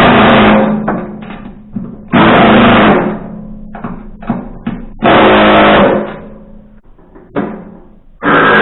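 A power driver tightening the bolts that hold the chipper knife, run in four short loud bursts of about a second each, the last starting near the end, with small clicks and knocks of handling in between.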